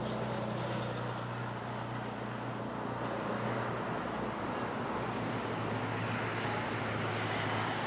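Steady road traffic noise with a low, steady hum underneath.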